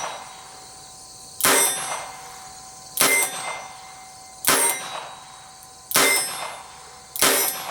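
Smith & Wesson Model 17 .22 LR target revolver firing five single shots, about one every second and a half. Each sharp crack is followed by a short ringing tone.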